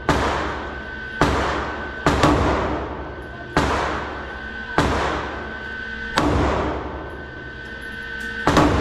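Glock 19X 9mm pistol firing single shots at a slow, uneven pace: eight in all, with two in quick succession about two seconds in. Each crack rings on in the echo of an indoor shooting range.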